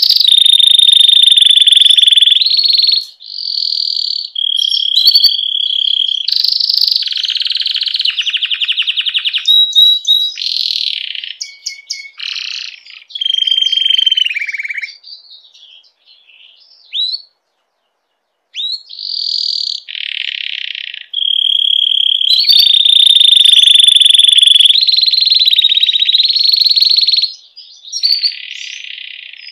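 Domestic canary song of a bird in breeding condition: loud, high phrases of very fast trills and rolls alternating with clear held notes. The song breaks off for a few seconds about halfway through.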